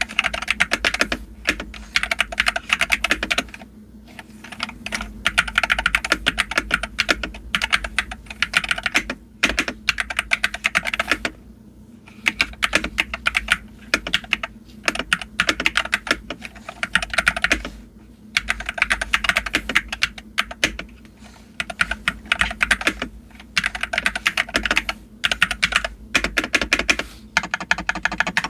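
Typing on a Monsgeek FUN60 magnetic-switch mechanical keyboard: rapid key clacks in bursts of a few seconds, with short pauses between them.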